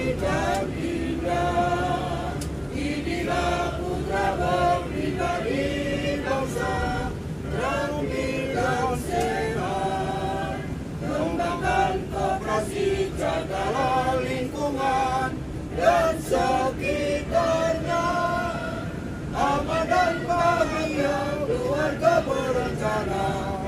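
A group of bus passengers singing together in chorus inside the bus cabin, with a steady low hum of the bus underneath.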